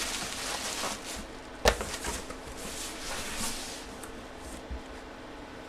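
Soft rustling and handling noises on a tabletop, with one sharp knock about a second and a half in, over a faint steady hum.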